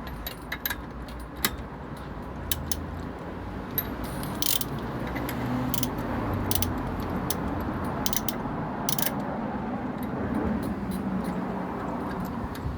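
Ratchet wrench clicking in uneven strokes while the clutch nut of a Honda FJS600 Silverwing is tightened by hand, with metallic working noise beneath.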